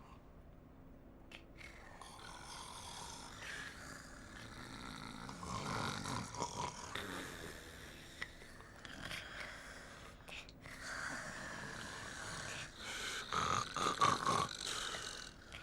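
Cartoon characters' voices snoring in their sleep, a run of uneven snores, loudest near the end.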